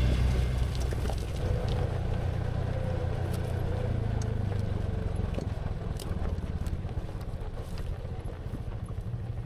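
Honda Pioneer side-by-side UTV engine running steadily while driving on a dirt trail, with a few faint clicks and knocks scattered through it.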